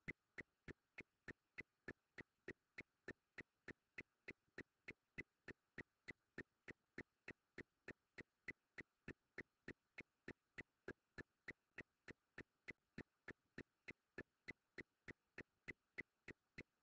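Faint, steady ticking, about three even ticks a second.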